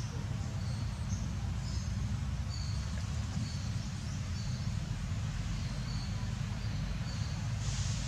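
Outdoor ambience: a steady low rumble, with short high bird chirps every second or so.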